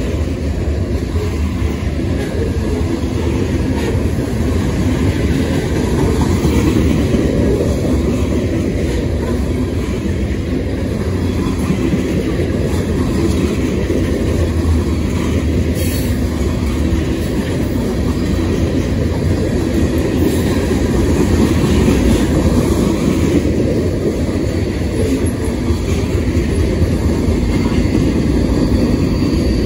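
CSX freight train rolling past steadily, a continuous rumble of steel wheels on rail.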